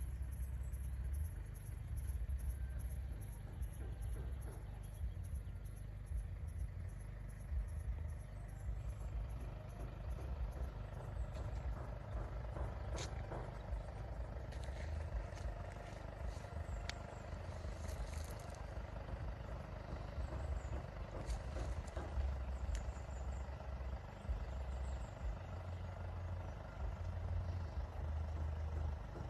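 Wind buffeting a phone microphone outdoors, a low rumble that rises and falls in gusts, with a few faint clicks.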